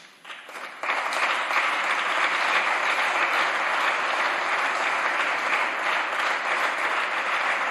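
A group of people applauding. The clapping comes in just after the start, swells to full strength within about a second and then holds steady.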